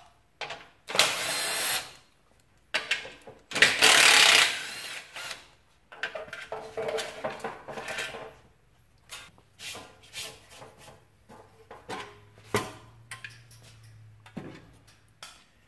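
Cordless impact driver run twice, about a second each, backing out the bolts of a taillight bracket on a motorcycle rear fender. Then quieter clattering and clicking as the metal bracket and its wiring are worked free and the fender is handled.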